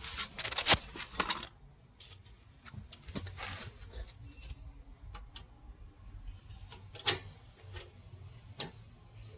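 Metal clinking and rattling of tools and brake caliper hardware being handled: a quick cluster of clinks over the first second and a half, then a few scattered single clicks.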